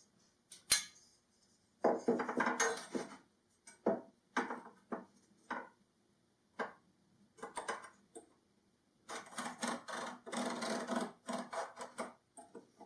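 Wooden workpieces and hand tools being handled on a workbench: a sharp knock about a second in, then scattered clatters and scrapes, and a denser run of quick rubbing strokes near the end.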